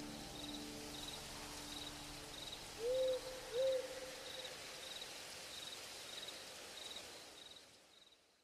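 Night ambience of crickets chirping steadily, about two chirps a second, over a soft hiss. An owl hoots twice about three seconds in. It all fades out near the end.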